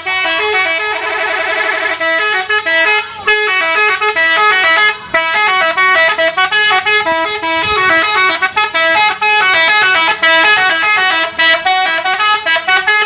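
Telolet horn on a Garuda Mas bus: a set of multi-tone air horns playing a fast tune of jumping notes, with a quick warbling trill about a second in.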